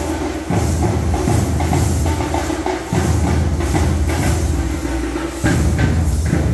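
Procession drumming: heavy drum beats and clattering percussion in a fast, repeating rhythm, the pattern restarting about every two and a half seconds.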